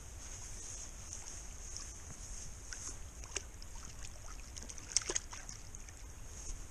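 Steady high-pitched chirring, the sound of night insects, over a low rumble, with two light knocks about three and a half and five seconds in.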